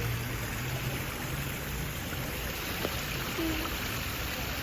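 Steady rush of running water from a splashing water feature.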